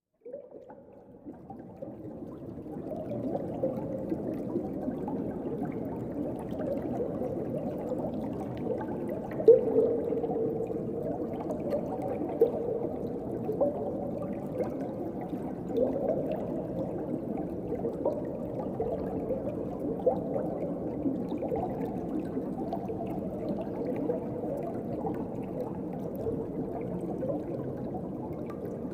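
Underwater ocean ambience: a steady, muffled low wash with small bubbling gurgles scattered through it, fading in over the first few seconds.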